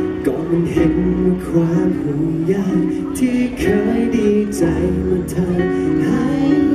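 A male singer performing a Thai pop song live into a handheld microphone, over instrumental accompaniment with a steady light percussion tick.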